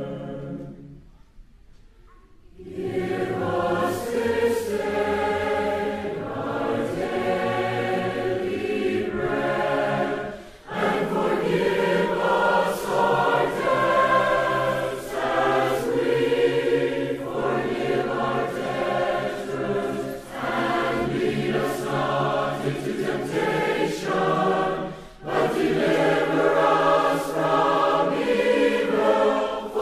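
A choir singing a setting of the Lord's Prayer. There is a short pause about a second in before the singing resumes, and brief breaths between phrases.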